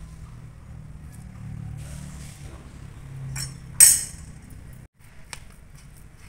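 Stainless steel dishes clinking: one loud, sharp metallic clink about four seconds in, then a lighter click about a second later, over a steady low hum.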